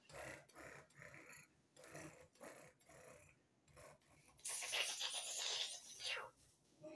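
A domestic tuxedo cat's short, soft vocal sounds. About four and a half seconds in comes a loud, noisy rush lasting nearly two seconds, as the cat comes right up to the microphone.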